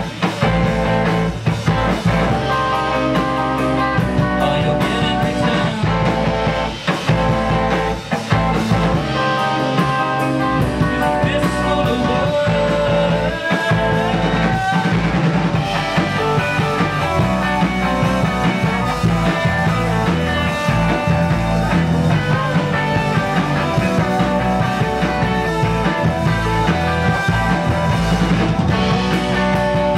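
A rock band playing live: electric guitars, bass guitar and drum kit, loud and continuous with a steady drum beat.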